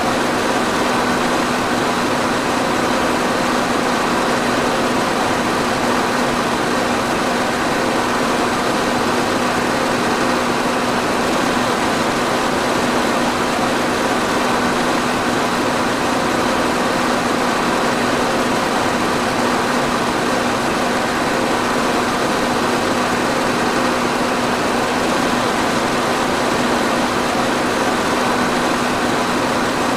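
Electric fan running steadily: an even rush of air with a constant low hum.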